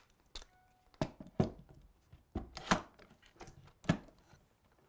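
Bar clamp being set across a glued-up wooden box. About five sharp knocks and clicks come as the clamp's steel bar and jaws meet the wood and are snugged up, with a faint brief squeak about half a second in.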